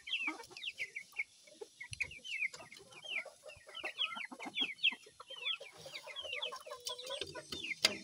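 Chickens in a coop calling: rapid, high peeping calls over lower clucks, with a knock near the end.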